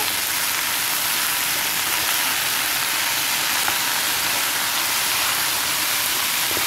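Boiled chickpeas sizzling steadily as they fry in hot oil in a metal pot while being stirred with a spoon.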